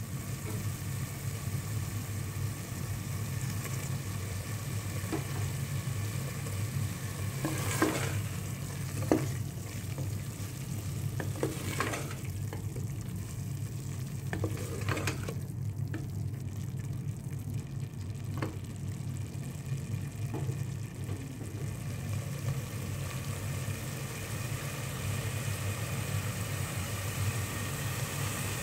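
A spatula stirring and scraping minced meat and potato frying in an aluminium pressure-cooker pot, the mince sizzling, with scattered knocks of the spatula against the pot. A steady low hum runs underneath.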